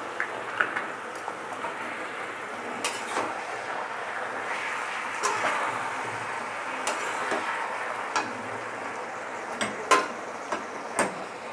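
A flat spatula stirring spinach and fish head in a metal kadai, with scattered knocks and scrapes of the spatula against the pan over a steady sizzle of the cooking food. The sharpest knocks come near the end.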